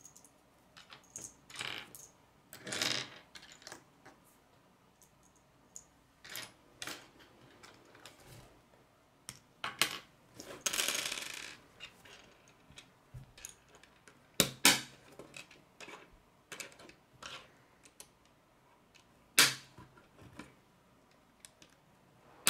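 Small plastic K'nex pieces clicking and tapping against a wooden tabletop and each other as they are picked up, set down and snapped together, with a couple of longer rustling stretches as pieces are handled.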